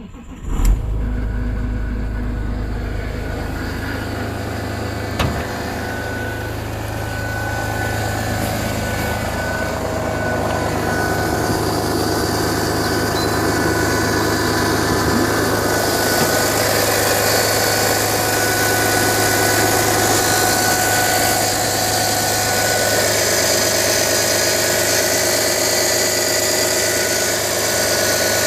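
Audi 2.5 TDI V6 diesel cold start: the engine cranks and catches within the first second, then idles steadily. A strange high-pitched whine and hiss over the idle grow stronger about halfway through.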